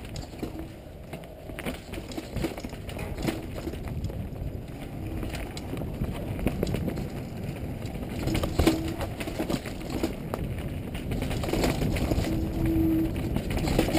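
Mountain bike running fast down a dirt singletrack, heard from a helmet-mounted camera: steady wind and tyre rumble with the bike rattling and clicking over bumps, a sharp knock about two-thirds of the way through, growing louder near the end.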